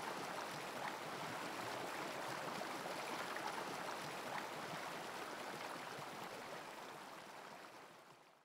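Steady sound of flowing stream water, fading out over the last couple of seconds.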